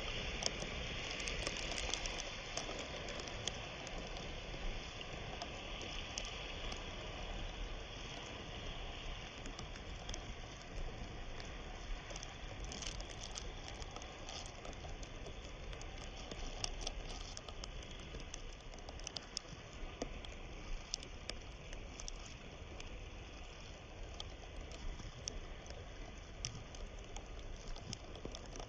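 A small river's water flowing, a steady rush with many small pattering splashes scattered through it.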